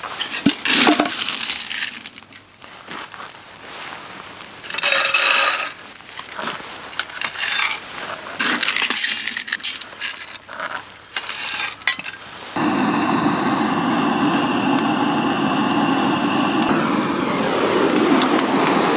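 Wood pellets scooped from a metal pail and poured into the hopper of a small pellet stove, rattling and clinking in irregular bursts. About twelve seconds in, a handheld gas torch on a canister is lit and hisses steadily as it is held to the stove to ignite the pellets.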